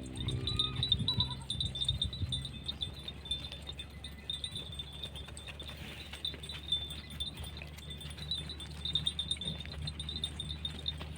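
Small bells on a grazing flock of sheep and goats jingling steadily, with a short bleat about a second in.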